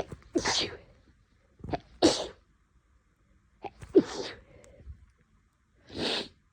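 A woman sneezing again and again in a sneezing fit from an itchy nose: three sharp sneezes about two seconds apart, then a softer, breathier one near the end.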